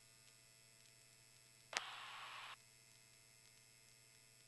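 Aircraft radio in the headset audio feed: a faint steady hum, broken about two seconds in by a sharp click and under a second of static hiss that cuts off sharply. This is a brief squelch break with no words.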